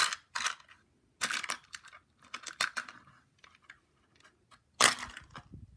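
Small glass and plastic beads and jewelry pieces handled and sorted in a box: four short bursts of clicking and rustling, with scattered light clicks between.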